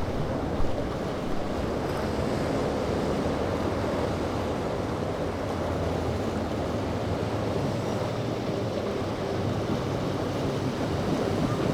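Steady rushing of surf and open water with wind buffeting the microphone, under a faint low hum of boat engines; a short thump about half a second in.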